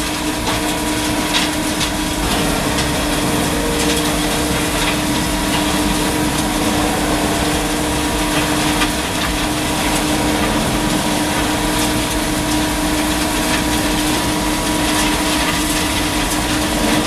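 Large wood chipper running steadily under load: an engine drone with a steady hum, under the noisy crunch of wood being chipped, with scattered clicks and knocks.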